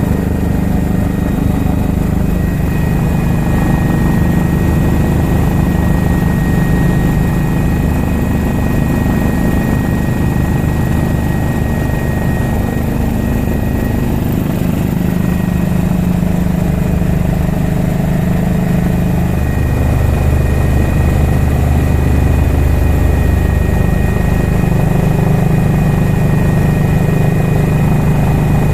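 Medical helicopter in flight heard from inside the cabin: a loud, steady drone from the rotors and engine that swells and eases a little, with a thin, steady high whine on top.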